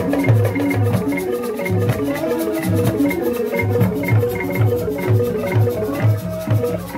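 Traditional drum ensemble with a wooden xylophone playing a fast, steady rhythm: deep drum strokes several times a second under quick repeated xylophone notes.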